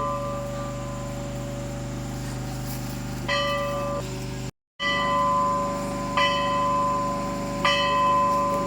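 Metal temple bell struck again and again, about every one and a half seconds, each stroke ringing on with several clear tones over a steady low hum.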